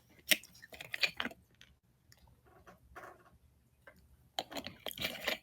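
Eating sounds close to the microphone: soft chewing with scattered small clicks and rustles, a little busier about a second in and again near the end.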